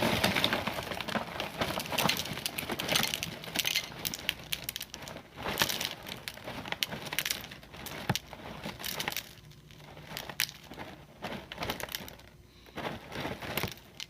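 Crisp honeycomb cereal crackling and crunching as a serving is tipped into a bowl and mixed into thick Greek yogurt. It makes a dense run of quick clicks and crinkles that thins out in the second half.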